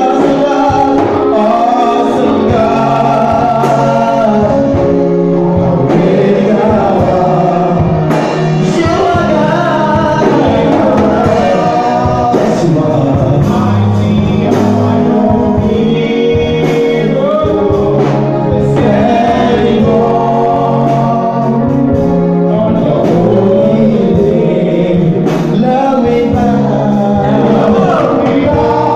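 Live gospel song: a male lead singer and backing singers singing in harmony into microphones, over sustained keyboard chords and steady percussion hits.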